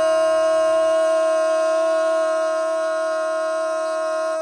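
A loud, steady horn-like tone held at one unwavering pitch.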